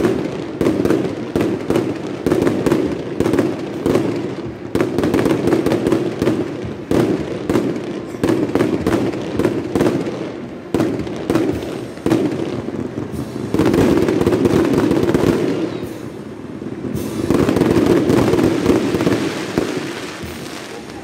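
Rapid, dense crackling of firecrackers going off without a break, over the swelling din of a large crowd.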